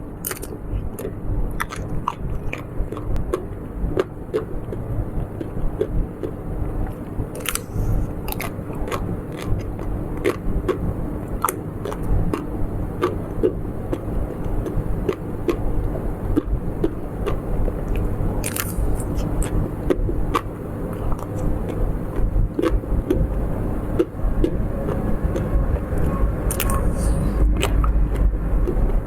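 Close-miked biting and chewing of snacks, with sharp crisp crunches scattered throughout, over a steady low hum.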